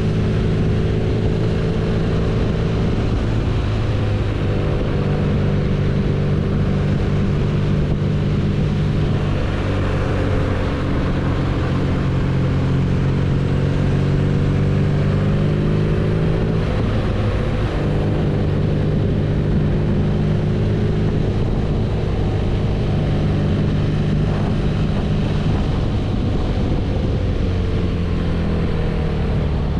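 BMW R nineT's air/oil-cooled boxer twin running steadily while the motorcycle is ridden. Its pitch eases down and climbs back several times with the throttle.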